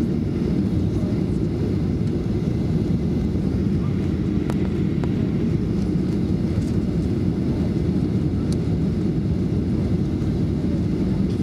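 Steady cabin rumble inside a Boeing 737-400 on approach, its CFM56 engines and the airflow over the extended flaps making an even noise that is heaviest in the low range.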